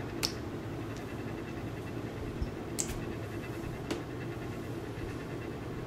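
Steady low room hum, with three faint clicks from a USB cable plug being handled against the plastic laptop case.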